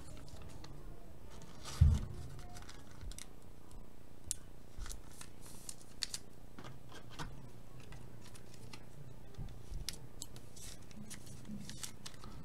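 Faint handling sounds of a trading card being put into a clear plastic card holder: small clicks and scrapes, with one louder low knock about two seconds in.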